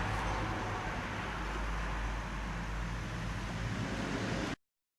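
Steady rushing background noise with a low hum underneath. It cuts off abruptly about four and a half seconds in.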